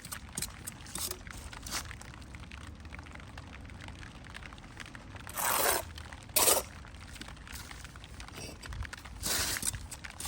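Brick and mortar being worked: three gritty scrapes, about five and a half, six and a half and nine and a half seconds in, among scattered light knocks and clicks.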